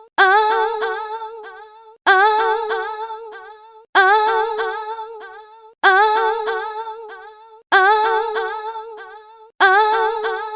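A woman's voice giving a long, wavering moan on one held note that fades out, the same clip repeated six times about every two seconds: a sexy-voice sound effect.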